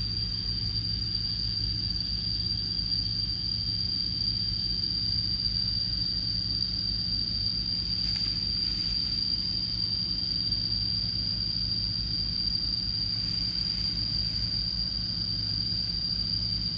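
A steady, high-pitched insect drone, such as cicadas or crickets, over a low rumble of wind on the microphone.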